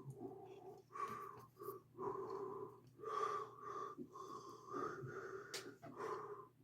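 A person breathing close to the microphone, each breath carrying a whistling wheeze, in a run of on-off breaths about half a second to a second long.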